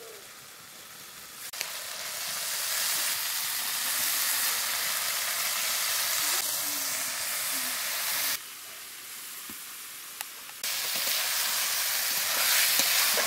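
Wet red lentils (masoor dal) sizzling as they fry in hot oil and spice paste in a steel karahi, stirred with a metal spatula. The sizzle builds over the first couple of seconds, drops abruptly for about two seconds past the middle, then comes back.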